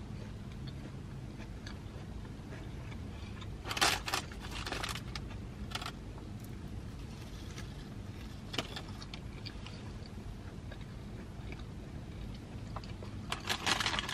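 Low steady rumble of a car interior, with a few short crackling rustles of food being handled and eaten: one about four seconds in, others near five and six seconds, one past eight seconds, and a cluster near the end.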